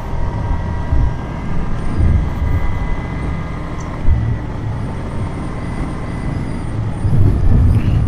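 Motorcycle on the move, recorded on an action camera: uneven wind rumble over the microphone with engine and road noise beneath, swelling in gusts a few times, and a faint steady whine.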